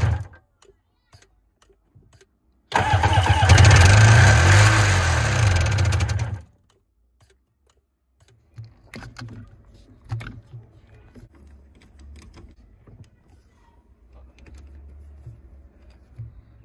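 Sea-Doo 951 direct-injection two-stroke twin engine started and run for about four seconds before it cuts off abruptly, just after a first short run has ended. It is running on only one cylinder: the other cylinder has no compression. Afterwards there are light clicks and knocks of hand tools on the engine.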